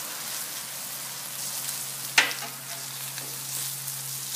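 Bone-in rib roast and hash browns searing on a Blackstone flat-top griddle: a steady frying sizzle over a faint low hum, with one sharp tap about two seconds in.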